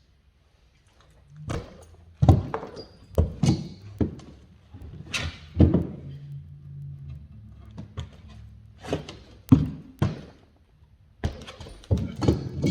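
A dozen or more hard, irregular knocks and thuds of wooden stair parts being struck and pried loose.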